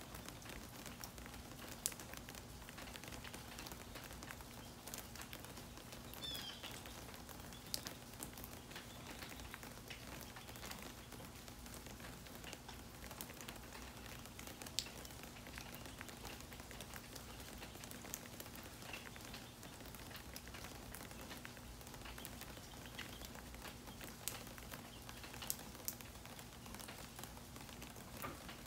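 Light rain falling: a soft, even patter with scattered sharp drips tapping close by.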